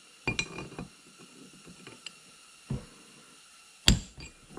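Ball-peen hammer striking a brass punch to drive the feed nut out of a Bridgeport milling vise body, each blow with a short metallic ring. Two quick taps at the start, another about two and a half seconds in, and the loudest blow near the end.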